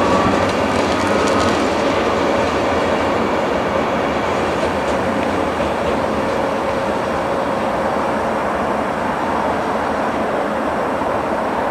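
VR Sr1 electric locomotive running along the track and drawing away: a steady rumble of wheels on rail that slowly grows fainter. A few wheel clicks over rail joints come in the first second, with a thin steady whine that fades out after a few seconds.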